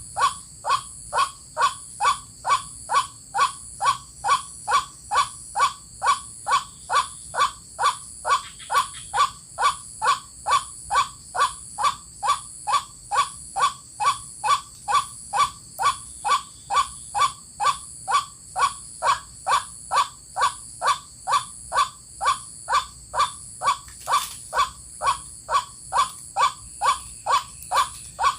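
White-breasted waterhen call: one short note repeated evenly about twice a second, without a break.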